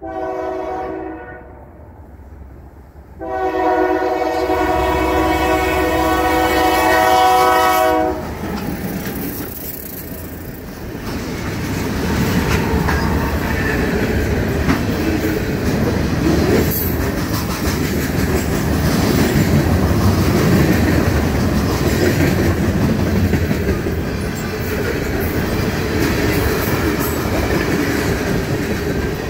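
A Union Pacific diesel locomotive's horn sounds a short blast, then a long blast of about five seconds that cuts off as the train reaches the grade crossing. The locomotive then rumbles past, followed by a long string of freight cars rolling by with a steady clickety-clack over the rails.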